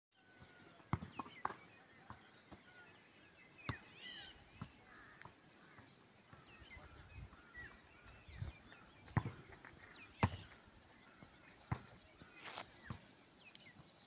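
Birds chirping and twittering in short, high calls throughout, with scattered sharp knocks at irregular intervals, the loudest about ten seconds in.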